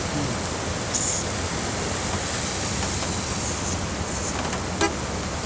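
Steady rushing noise of heavy rain and muddy floodwater running across a road, with a brief louder hiss about a second in and a short knock near the end.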